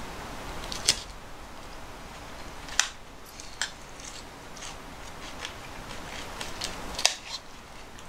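Tableware clinking: a fork and ceramic dishes knocking together in a few sharp, separate clinks, the loudest about a second in, near three seconds and about seven seconds in.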